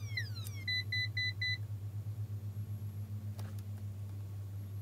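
In-circuit ESR capacitor tester sounding as its probes touch a capacitor: two quick falling tones, then four short beeps in a row about a second in. On this tester, several beeps mean the capacitor's ESR is high. A steady low hum runs underneath.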